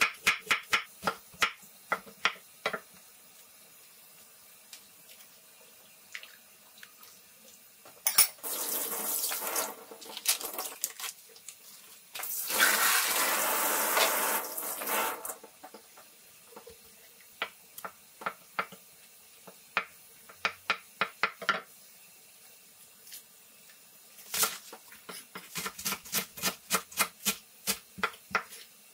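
Kitchen knife slicing cucumber on a wooden cutting board, a quick run of strokes at the start. Then a kitchen tap runs into a stainless-steel sink in two spells of a few seconds each, with scattered light knocks after. Near the end comes rapid knife chopping of green onions on the board.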